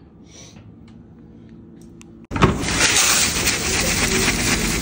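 Faint room tone, then a little over two seconds in a sudden, steady dry hiss and patter of instant mashed potato flakes pouring from a cardboard box into an aluminium foil pan.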